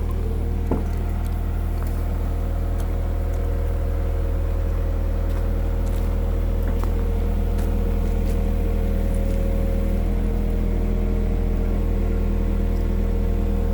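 Komatsu PC120-6 excavator's diesel engine running steadily while digging a trench, a deep even drone with a thin steady whine above it. A single knock sounds about a second in.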